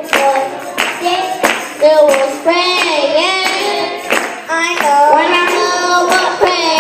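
Young children singing a gospel song about prayer into a microphone, with steady hand-clapping on the beat.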